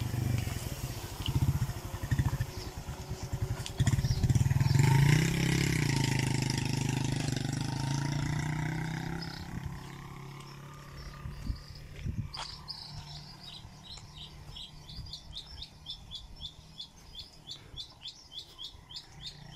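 A motor vehicle's engine passes close by, rising in pitch and then fading over the first half. Then a bird sings a fast, even run of high repeated chirps, about four a second.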